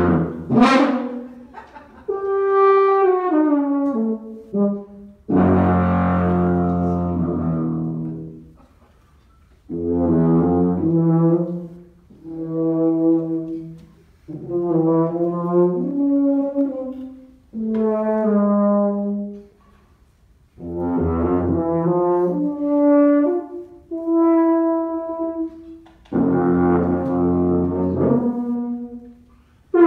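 Miraphone tuba played solo, improvising in short phrases of low notes with brief pauses between them, some notes bending down in pitch.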